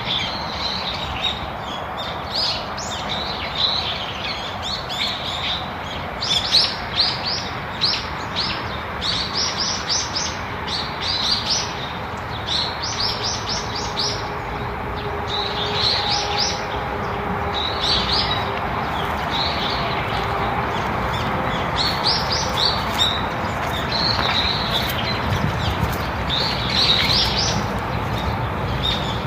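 Birds chirping and singing over a steady background hiss: many short, quick chirps and trills, some in fast runs, throughout.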